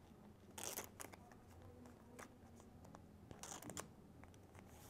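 Faint plastic rustles and light clicks of a trading card being slid by hand into a soft clear plastic card sleeve, a few brief crinkles between near-quiet stretches.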